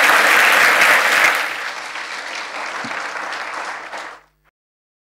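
Audience applauding, loudest in the first second and a half, then thinning out, and cut off suddenly about four seconds in.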